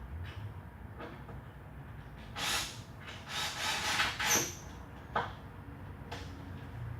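Handling noise from assembling concrete panels with metal angle brackets: a few short scrapes and rattles around the middle, then a couple of sharp knocks, over a low steady hum.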